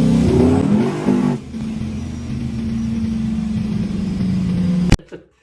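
Procharged small-block Chevy V8 in a 1974 Nova running hard. It revs through the first second and a half, then holds a steady note until it cuts off suddenly near the end.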